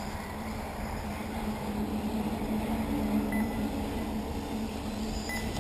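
Wind rumbling on the microphone, with a steady low hum that swells through the middle and two short high beeps about two seconds apart near the end.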